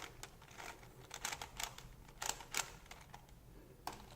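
A 3x3x4 cuboid twisty puzzle being handled and turned: faint, irregular plastic clicks and clacks, clustered in the middle with one more near the end.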